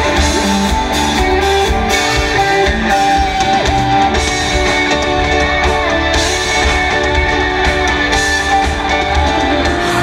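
Live rock band music led by electric guitar over bass and drums.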